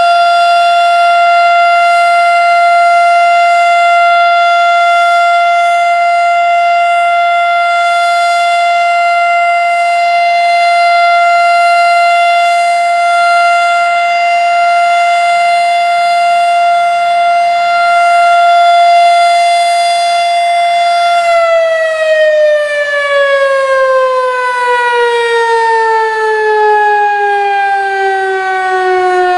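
Erick 2 hp fire siren sounding a steady full-alert tone on one held pitch, then winding down with a steadily falling pitch from about three quarters of the way through, as it shuts off.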